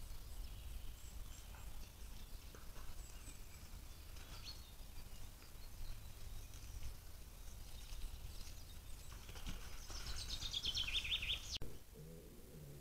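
Woodland birdsong over a low steady rumble of outdoor microphone noise: scattered faint chirps, then near the end a loud songbird song, a quick run of notes falling in pitch for about a second and a half, which breaks off abruptly.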